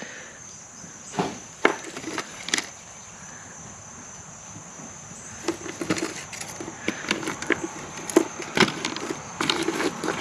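Small wooden thread spools, buttons and needle packets clicking and rattling against each other and a wooden sewing-machine drawer as a hand rummages through them: a few knocks in the first seconds, then a busier clatter through the second half. A steady high insect drone runs behind.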